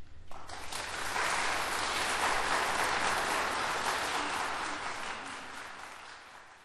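Audience applause that starts a moment in, builds to its fullest, then dies away toward the end.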